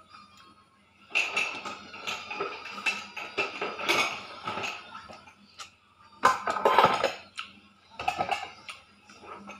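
Someone eating by hand: fingers pressing and scraping rice against a ceramic plate, with chewing and lip-smacking, in irregular clusters of small clicks and crackles. Nearly quiet for the first second, busiest about two-thirds of the way through.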